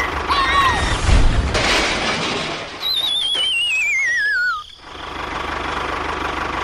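A small engine running with a rattling drone, broken in the middle by a falling, warbling whistle about two seconds long. The engine then settles into a steady rattle.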